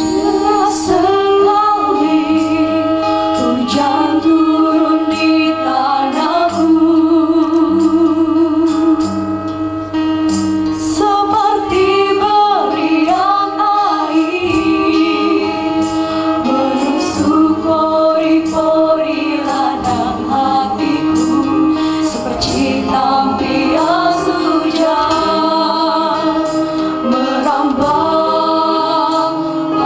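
A small group of singers performing together through microphones, holding long, wavering notes.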